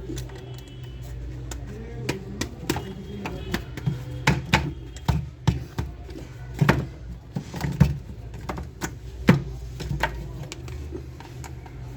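Irregular clicks and knocks, as of hard plastic toy parts being handled and fitted, loudest about four seconds in and near the ninth second, over a steady low hum.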